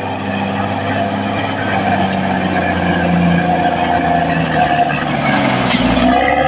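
Caterpillar D6R XL bulldozer's diesel engine running steadily, its pitch drifting slightly. A brief rush of noise joins it about five seconds in.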